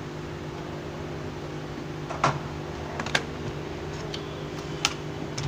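A steady low electrical hum of running equipment, with a few sharp clicks and knocks, the loudest about two seconds in, as a motherboard and tools are handled on a workbench.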